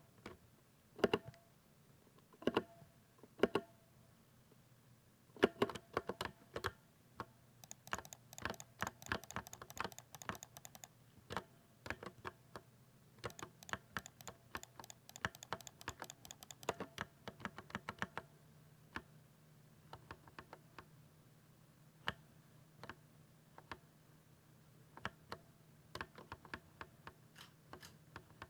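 Typing on a 60% mechanical keyboard with a thocky keystroke sound: a few separate heavy key presses at first, then fast runs of typing through the middle, thinning to scattered keystrokes near the end.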